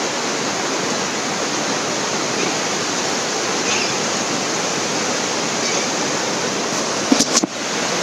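A small river rushing and splashing steadily over its bed. A few brief knocks near the end.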